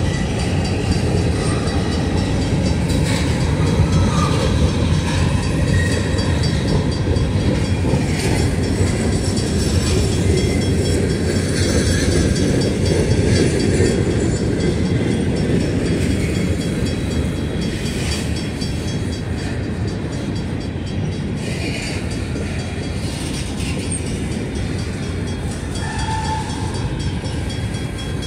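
Freight train of covered hopper cars rolling past: a steady rumble of steel wheels on rail, with scattered clicks from the wheels over rail joints.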